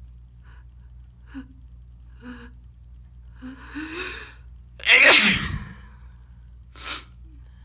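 A person with a bad head cold sneezing: a few short catching breaths, a drawn-out in-breath rising in pitch, then one loud sneeze about five seconds in, followed by a short sharp breath near the end.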